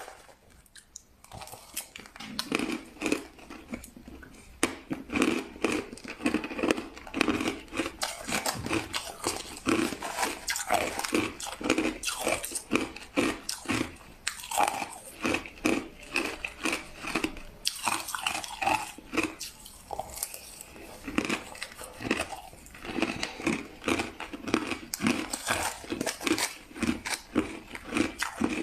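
Crushed ice being bitten and chewed close up: a rapid, unbroken run of crisp crunches starting about a second in.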